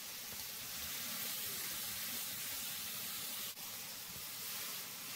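Marinated beef skirt and onions sizzling on a hot electric countertop griddle, a steady hiss. The sound briefly drops out about three and a half seconds in.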